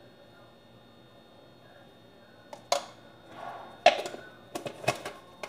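Spice jars being handled: a few sharp clicks and knocks from plastic caps and containers being opened and set down, starting about two and a half seconds in.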